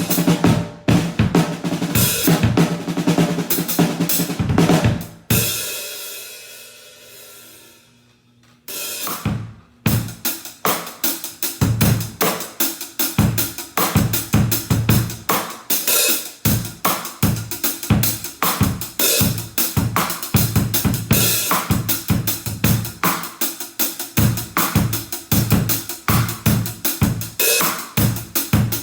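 Acoustic drum kit played unmiked and unprocessed, heard as the room sounds: kick, snare and cymbals in a steady beat. About five seconds in the playing stops and a cymbal rings and fades for about three seconds, then the beat starts again.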